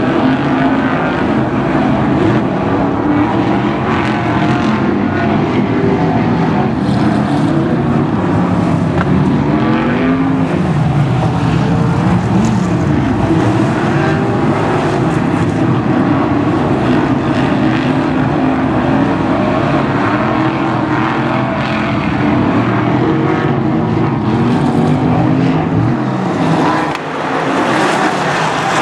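A pack of BriSCA F1 stock cars' V8 engines racing, revving up and down as they pass through the bends of a shale oval.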